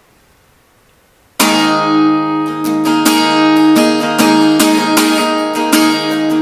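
Acoustic guitar strummed: after a short quiet pause it comes in suddenly about a second and a half in, then keeps a steady run of chord strums.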